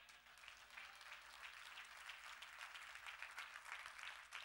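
Audience applauding: many hands clapping in a faint, even patter that starts suddenly.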